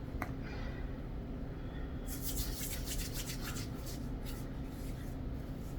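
A run of quick rubbing and rustling sounds from hands handling cosmetic products, starting about two seconds in and fading out about a second and a half before the end, over a steady low hum.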